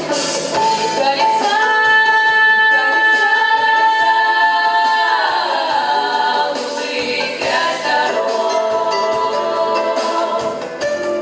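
A vocal ensemble singing long held notes in harmony that slide down together about halfway through, with the percussion of the backing music coming back in near the end.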